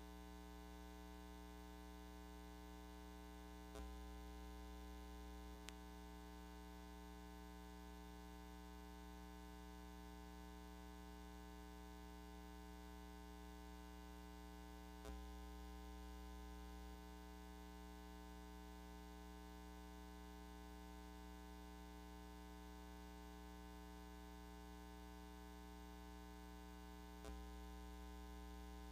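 Near silence: a faint, steady electrical hum, broken by a few faint clicks.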